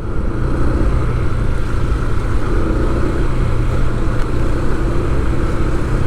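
Steady engine and road noise of a moving motor vehicle: a constant low drone and hum with no change in speed.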